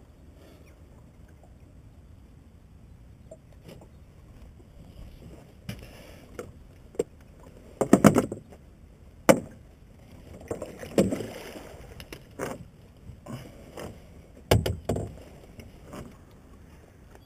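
Irregular knocks and water splashing around a small boat on open water, getting busier midway, with the loudest thumps about eight and eleven seconds in and two more near the end.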